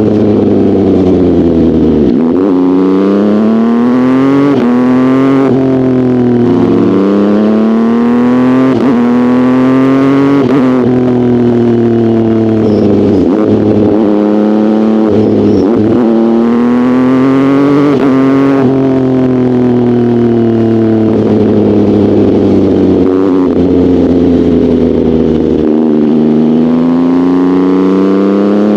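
Sport motorcycle engine being ridden hard: the revs climb and then drop sharply at each upshift, several times over, with stretches where the revs fall away as it slows before pulling up through the gears again.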